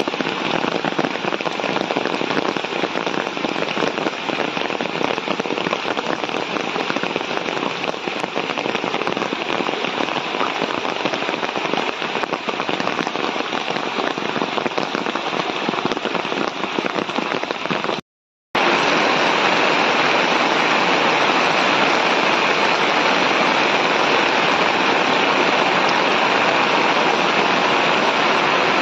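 Heavy rain pouring steadily onto standing floodwater and foliage, a dense even hiss. The sound cuts out for a split second about two-thirds of the way through, then carries on slightly louder.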